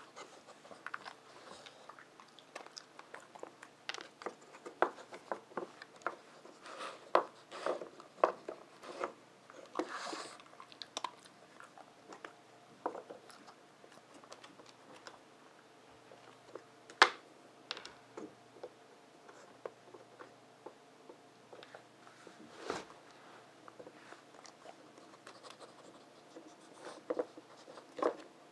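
Dog working at a wooden treat puzzle game: irregular light clicks, knocks and scrapes of the wooden pieces being nosed and shifted, with one louder knock a little past halfway.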